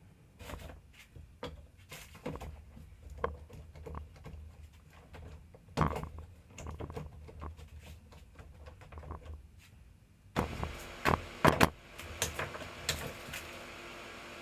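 Workshop handling noises: irregular knocks and clicks of wooden pieces and tools being moved and set down. About ten seconds in, a steady hiss of a machine or fan switches on, with a few sharper knocks just after.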